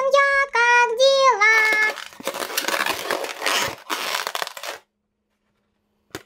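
A child's high voice singing a short sung phrase, then a rustling, crinkling rub of a long latex modelling balloon being squeezed and folded in the hands for about two and a half seconds.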